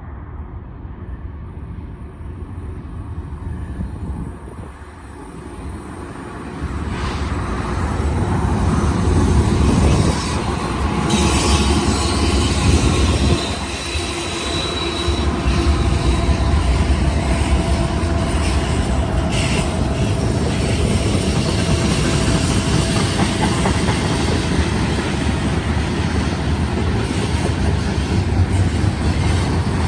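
BNSF freight train's diesel locomotives approach and pass close by, the engine noise building and loudest about ten seconds in, then the freight cars roll past with steel wheels rumbling and squealing on the curved track.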